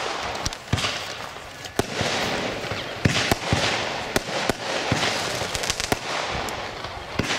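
Veko Voodoo Star compound firework (a cake of over 50 shots) firing: a string of sharp bangs at uneven intervals, with a hissing haze between them.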